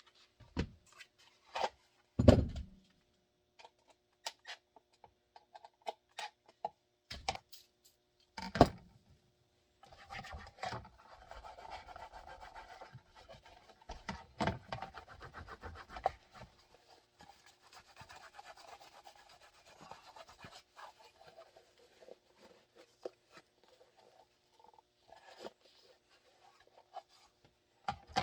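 Hands working on plastic holster parts at a bench: a series of sharp knocks and clacks, the loudest about two seconds in, then about ten seconds of steady rubbing or scraping, followed by scattered light clicks.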